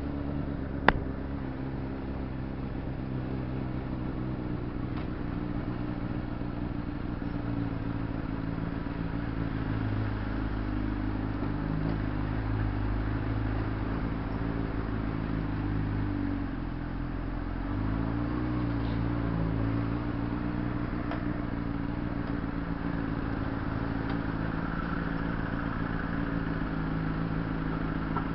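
Honda CBR600RR's inline-four engine running at low, steady revs in traffic, the pitch dropping and then climbing again about two-thirds of the way through. A sharp click about a second in.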